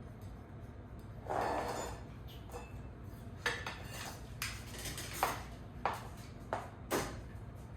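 Metal office-chair hardware being handled during assembly: a short scraping rustle about a second in, then around half a dozen sharp metallic clinks and taps as bolts are set in place.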